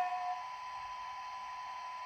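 Sound decoder of a Piko H0 class 143 model electric locomotive (ESU LokSound 5): a short horn note, begun just before, cuts off about half a second in. After it only a faint steady high whine over hiss remains while the locomotive stands.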